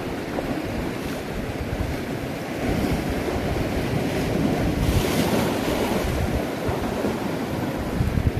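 Sea swell washing and breaking against the rocks below a low sea cliff, with wind buffeting the microphone. A louder rush of surf comes about five seconds in.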